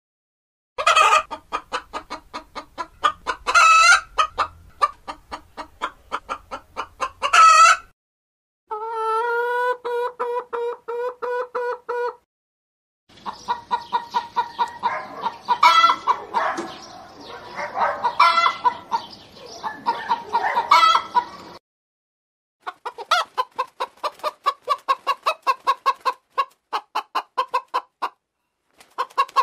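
Chickens clucking in quick repeated notes, with louder squawks now and then and one long, steady call about nine seconds in. The sound comes in separate stretches broken by short, abrupt silences.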